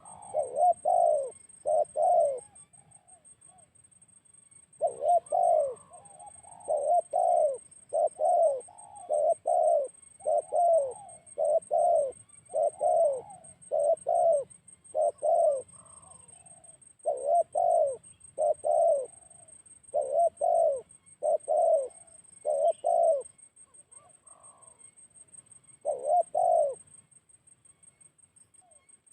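Spotted dove (tekukur) cooing: repeated low coos in series, with two short pauses, stopping near the end.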